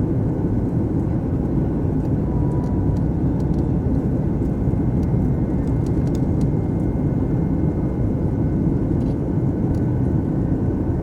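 Boeing 737 MAX's CFM LEAP-1B turbofan engines running, a loud steady rumble that holds level throughout.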